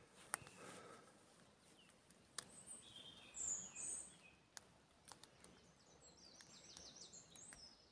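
Faint birdsong: a few short high chirps about three to four seconds in and a quick run of short high notes near the end, with a few faint clicks scattered through.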